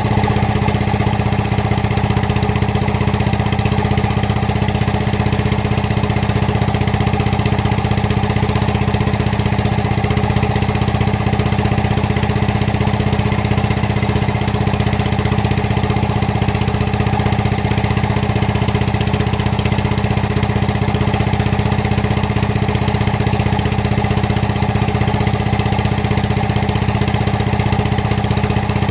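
Excavator's diesel engine idling steadily at an even, unchanging speed.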